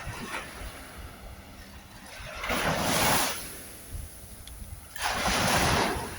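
Ocean waves breaking and washing up a shore, with two loud surges of surf a couple of seconds apart over a steady wash.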